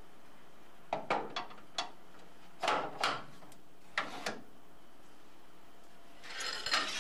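A few separate knocks and clunks of metal machine parts being handled and set in place on the skate sharpening machine, the loudest near the middle.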